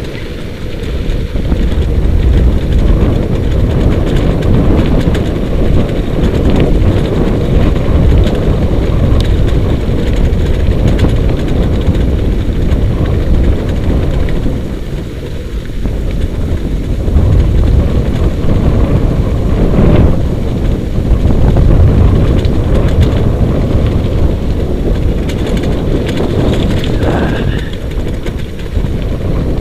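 Steady loud rumble of wind buffeting the microphone and a wheeled dog-sled rig rolling fast over a rough dirt trail behind a husky team, with a few brief knocks from the rig.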